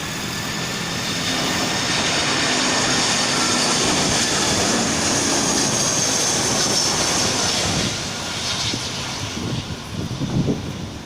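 Jet engines of an Airbus A320-216 running, heard from outside the aircraft: a loud, steady noise with a high hiss. It builds over the first couple of seconds and becomes uneven after about eight seconds.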